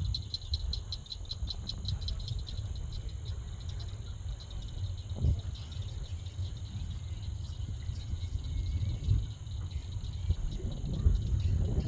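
Insects chirping in a rapid, even pulse, about six chirps a second, loudest in the first few seconds and fainter later, over a steady low rumbling noise.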